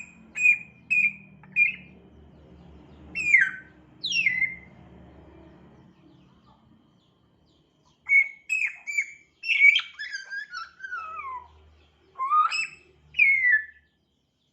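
African grey parrot whistling and chirping: four short clipped notes, then two falling whistles. After a pause of about two seconds comes a quicker run of whistles and chirps that glide down and up in pitch.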